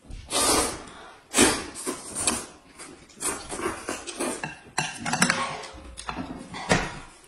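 Noodles and soup being slurped in loud, irregular bursts, with a few sharp clicks of chopsticks against the dishes.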